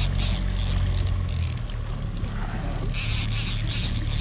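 A charter boat's engine drones steadily and eases off about a second and a half in. Stretches of high hiss come and go over it, near the start and again near the end.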